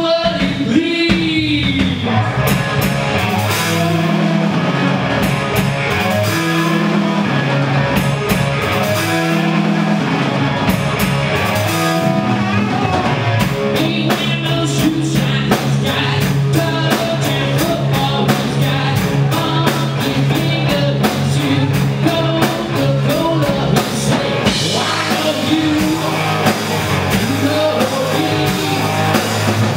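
Live rock band playing: electric bass, electric guitar and drum kit with a steady beat, and a man singing lead in parts, near the start and again near the end.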